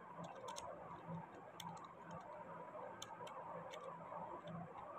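Faint, irregular light clicks of small resin-cast plastic magazine parts, a rotor and its coil spring, being handled and fitted into the housing by hand.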